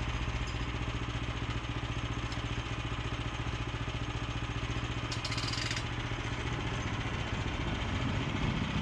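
Small engine idling steadily with a fast even pulse, with a brief hiss about five seconds in; the sound cuts off abruptly at the very end.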